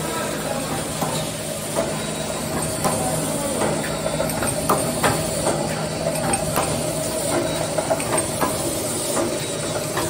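Electric spot-welding wire mesh roll machine running: a steady hum overlaid with irregular sharp clicks and clacks, one or two a second, from the welding and feed mechanism.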